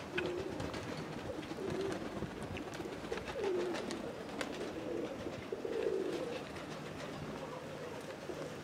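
Domestic pigeons cooing, with several low, wavering coos repeating and overlapping.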